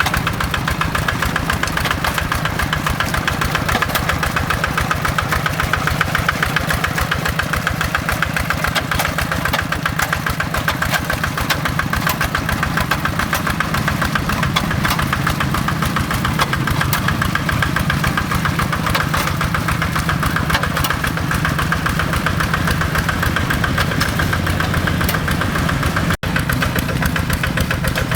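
Kubota RD85 DI-2S single-cylinder diesel engine of a hand tractor running steadily, with a rapid, even diesel knock. The sound breaks off for an instant near the end.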